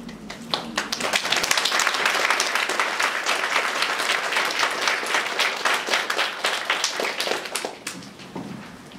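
Audience applauding: many hands clapping together, starting about half a second in, holding steady, then thinning out and fading near the end.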